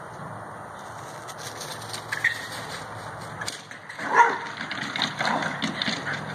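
Tree squirrel giving its scolding chatter-call, the squirrel's 'laugh' after escaping the dog. A loud, sharp call comes about four seconds in, followed by a quick run of shorter calls.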